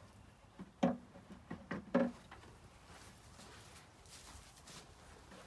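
A few short knocks and taps in the first couple of seconds, from a plastic bucket being handled while eggs are gathered into it.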